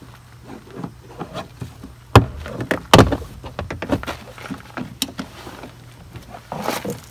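Plastic retaining clips of a 2017 Honda Ridgeline's interior door panel popping loose as the panel is pried off with a flathead screwdriver: two sharp snaps about two and three seconds in, with lighter clicks and scraping of the plastic trim between them.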